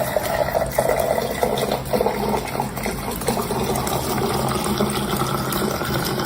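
Water running steadily, with a faint tone that slowly rises in pitch and a low steady hum beneath.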